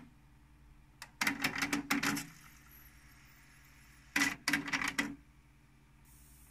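Pioneer CT-W205R cassette deck's tape transport mechanism clicking and clattering in two short bursts, about a second in and again about four seconds in.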